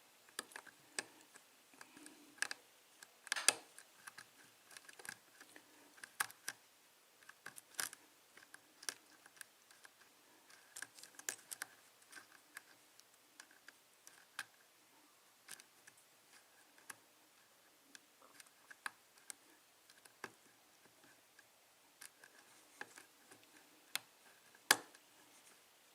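Faint, irregular clicks and scrapes of a lock pick working the pins inside a modified five-pin EVVA euro cylinder under tension, trying to set pin 1, which does not set. A few clicks are louder, one about three and a half seconds in and one near the end.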